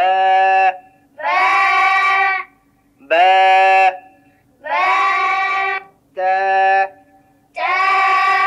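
Talking learning pen's small speaker voicing Arabic letter names: six drawn-out, even-pitched calls of about a second each with short gaps, over a faint steady hum. Each touch on a letter makes the pen repeat its name several times.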